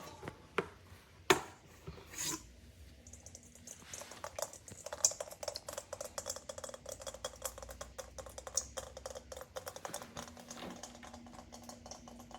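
A few knocks of hard plastic being handled. Then water pours or trickles into the Midea 5L air cooler's plastic tank as a long run of fast, irregular crackling splashes for several seconds, easing near the end.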